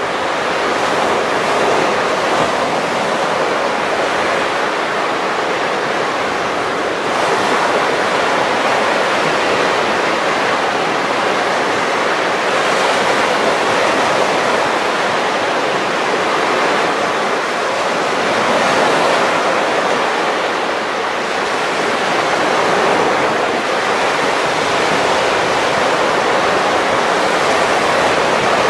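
Baltic Sea surf breaking on a sandy beach: a steady wash of waves that swells every five or six seconds as each breaker comes in.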